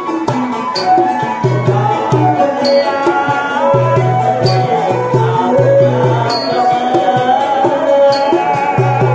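Khmer traditional ensemble music: a tro, the Khmer two-string bowed fiddle, and a goblet hand drum play a lively melody and beat, with a man singing along into a microphone. A bright metallic tap recurs about every two seconds.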